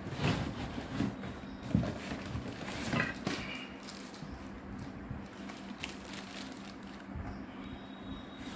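Cardboard box flaps being handled and pulled open by hand, with a few short bursts of scraping and rustling in the first three seconds, then softer rustling, over a faint steady hum.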